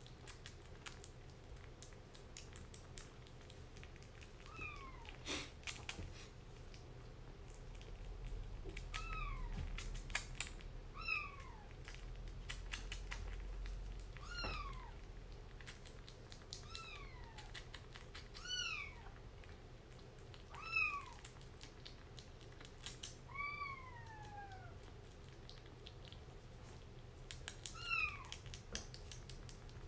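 Kitten mewing: about ten short, high mews, each falling in pitch, come every second or two from about four seconds in. Small clicks of a kitten eating wet food from a bowl run under them.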